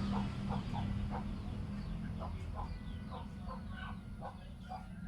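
Birds calling: many short chirps, several a second, over a low steady hum.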